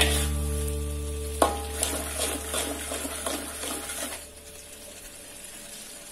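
Metal spatula scraping and stirring thick chili paste in an aluminium wok while the paste sizzles and bubbles in oil, being cooked until the oil separates. The stirring stops about four seconds in, leaving only the sizzle.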